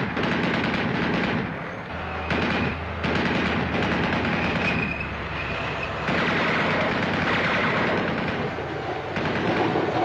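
Dense, continuous machine-gun and rifle fire, with a deep rumble underneath from about two to six seconds in.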